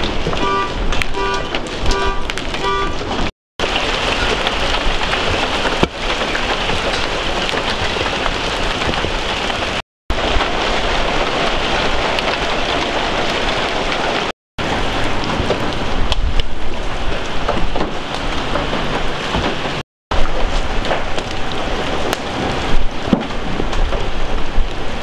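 Hail and rain pelting a gravel lot and vehicles: a dense, steady clatter and hiss, broken by a few brief gaps of silence. For the first few seconds a repeating electronic beep, about two a second, sounds over it.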